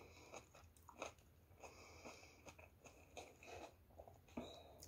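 Faint chewing of battered fried snacks close to the microphone, with scattered soft crunches and small clicks.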